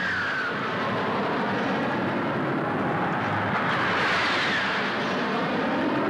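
A formation of F-86 Sabre jet fighters flying over, their J47 turbojets making a steady rushing jet noise. A whine falls in pitch at the start, and another rises and then falls about four seconds in as aircraft pass.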